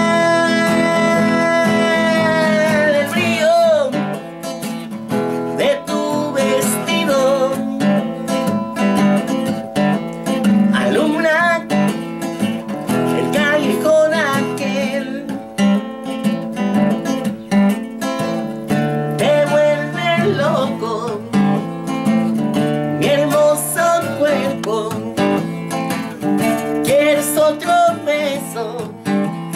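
A singer holds one long note for the first few seconds, then sings on while strumming chords on a nylon-string classical guitar.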